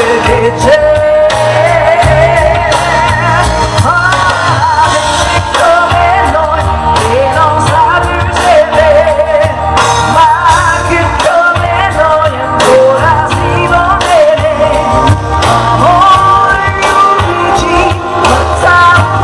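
A woman singing live into a microphone over a pop-rock backing with drums and bass, her held notes wavering with vibrato.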